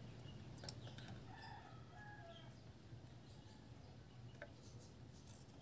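Near silence, with a faint distant rooster crowing in the first half and a small tick less than a second in.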